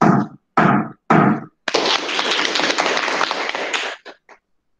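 Gavel struck three times on the table, about half a second apart, the customary signal that the meeting is declared open, followed by about two seconds of applause.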